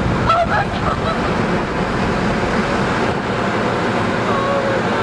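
Car wash air-dryer blowers blasting air through an open car window, a loud steady rush with wind buffeting the microphone. Short high-pitched squeals of laughter come about half a second in and again near the end.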